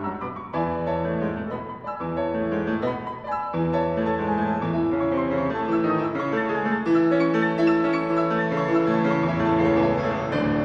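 Background piano music: held notes sounding together as chords, note after note.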